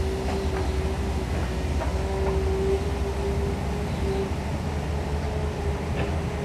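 Caterpillar long-reach excavator's diesel engine running under load, a low rumble with a steady whine over it, and a few faint knocks as the bucket works in wet mud.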